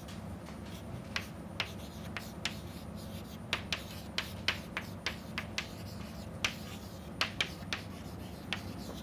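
Chalk writing on a chalkboard: a run of short, irregular taps and scratches as words are written out.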